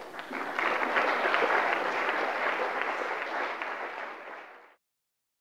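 Audience applauding, building up within the first second and slowly thinning out, then cut off abruptly near the end.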